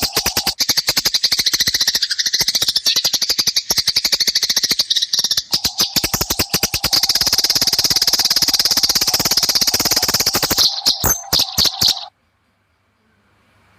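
Eurasian tree sparrows in a fight, chattering in a dense, rapid stream of harsh chirps. The chatter cuts off suddenly about twelve seconds in.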